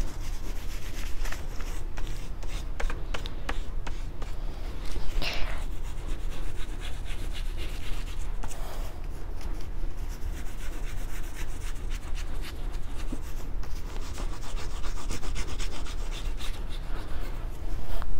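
Oil pastel rubbed back and forth on paper, colouring in a patch of light blue: a steady rubbing made of many quick strokes.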